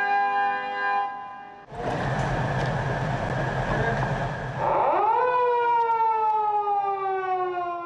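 Held steady tones end about a second and a half in, and a rush of noise with a low rumble follows. About five seconds in, the Harley-Davidson police motorcycles' siren sweeps up sharply and then winds slowly down in pitch.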